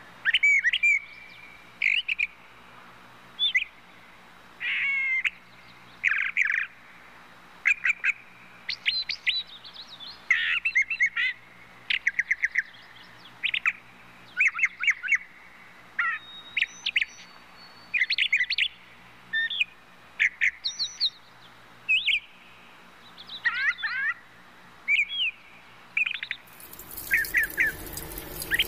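Small birds chirping and tweeting in quick, repeated short calls and trills. A steady hiss comes in near the end.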